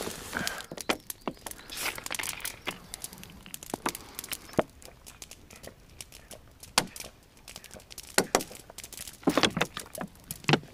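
Irregular sharp clicks and knocks with some crinkling and rustling, from things being handled by hand.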